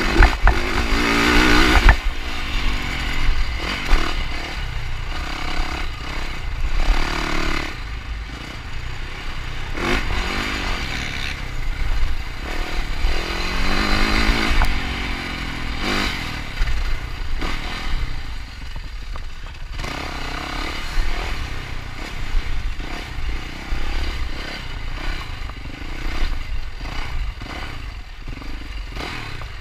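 Yamaha 450 four-stroke single-cylinder dirt bike engine ridden hard off-road, revving up and falling back again and again as the rider works the throttle, with a few sharp knocks from the bike.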